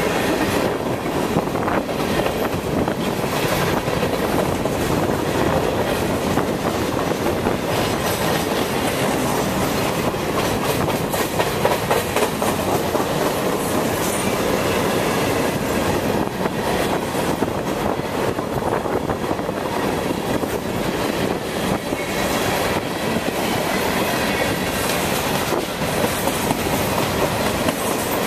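Freight train's covered hoppers and tank cars rolling past at close range: a steady rumble with the wheels clacking over the track.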